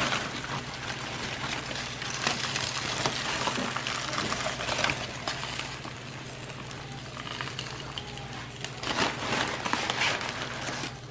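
Aluminium foil crinkling in irregular crackles as it is peeled back and lifted off a baking dish, over a steady low hum.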